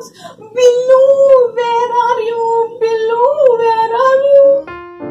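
A woman singing long, high held notes in a wavering voice, with short breaks between phrases. Near the end the voice stops and a piano tune begins.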